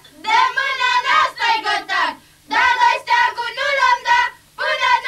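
A group of young women singing an unaccompanied high-pitched Oaș folk song in short phrases, with brief breaths between them. It is the song sung over the finished wedding flag.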